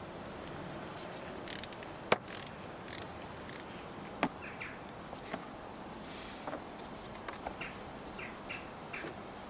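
Scattered sharp metallic clicks and taps of a ratchet and 16 mm socket working on the starter motor's mounting bolt, the loudest about two seconds in.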